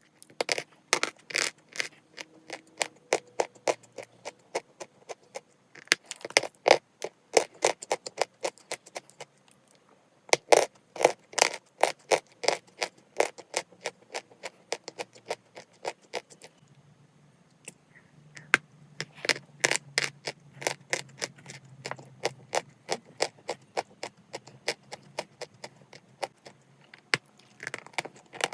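Close-up crunching and chewing of dry chalk: runs of sharp, crackly crunches several a second, broken by short pauses three times.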